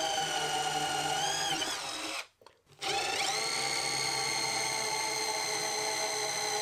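Bosch 12 V cordless driver spinning a small hex-shank drill bit into a wooden drawer front, giving a steady high motor whine. The whine stops about two seconds in, starts again half a second later and climbs back up to speed.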